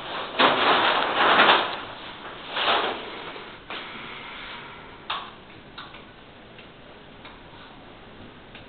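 Hands pressing and rubbing along the top edge of a whiteboard sheet being fitted to a wall, giving loud rustling swishes in the first couple of seconds, a few sharp clicks and knocks, then fainter light ticking.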